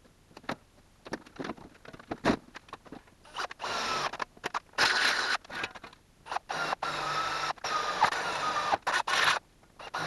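Power drill boring holes in steel tubing, its motor whine wavering under load, heard in several short stretches that cut off abruptly; scattered clicks and knocks come first.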